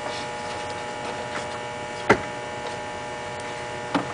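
Steady electrical hum with several fixed tones, broken by one sharp crack about two seconds in and a fainter knock near the end.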